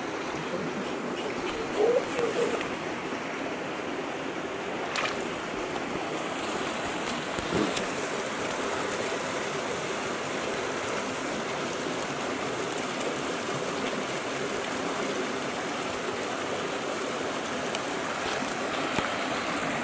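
Shallow stream rushing steadily over rocks, with a brief bump about two seconds in and a couple of faint clicks.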